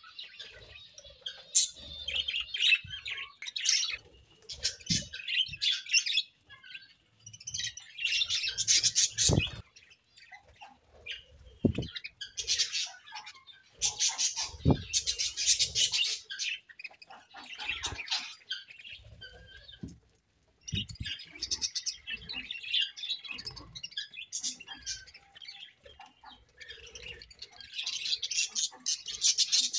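Budgerigars chattering and chirping in irregular bursts of rapid warbling with short pauses between, and a few sharp knocks among them.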